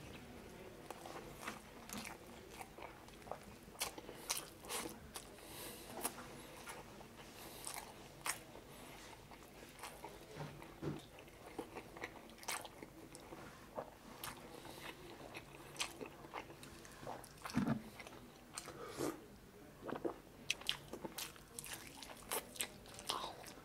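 Close-miked chewing and biting of someone eating chicken adobo and rice by hand: irregular wet mouth clicks and smacks, louder in clusters near the end.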